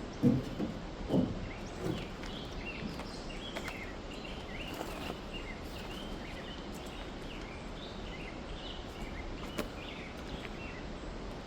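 Small birds calling in the woods, many short quick chirps over a steady background hiss. A few dull thumps in the first two seconds.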